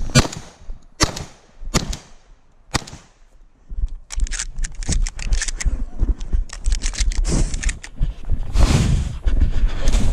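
Four shotgun shots about a second apart in the first three seconds. Then comes a stretch of quick running footsteps with gear rattling and wind rumbling on the body-worn camera microphone.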